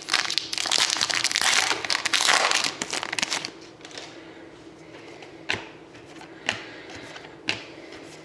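Foil trading-card pack wrapper crinkling and being torn open for about three seconds, then single cards clicking as they are flipped through, about one a second.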